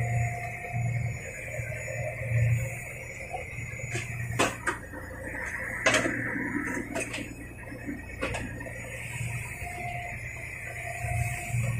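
Small fishing trawler's engine running with a steady low hum and a high whine, with a handful of sharp knocks and rattles in the middle stretch.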